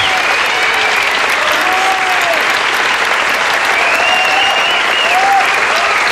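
Sustained, steady applause from a studio audience and performers clapping, with short scattered calls rising and falling above it.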